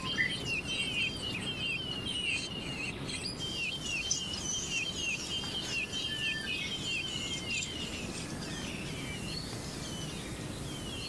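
Small bird chirping in a quick run of short, high, downward-sliding chirps, about two or three a second, over a steady outdoor hiss. The chirps fade in the last few seconds.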